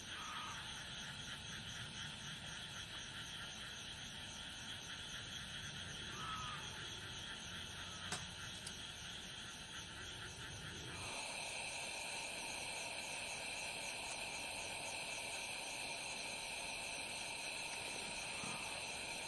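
Faint night insects chirping steadily in a fine, rapid pulsing, with a single light click about eight seconds in. The insect sound grows slightly louder and changes texture about eleven seconds in.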